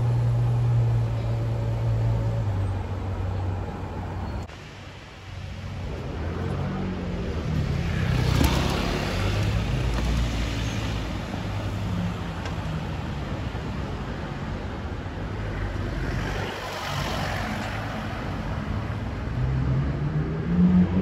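City street traffic: a car engine running low and steady for the first few seconds, then road noise with vehicles driving past about eight and seventeen seconds in, and an engine note rising near the end.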